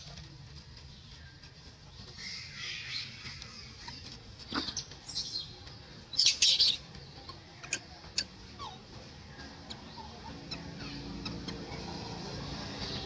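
Baby macaque crying in a string of short, high-pitched squeals and screeches, loudest in a burst about six seconds in, as it tries to nurse and is refused by its mother.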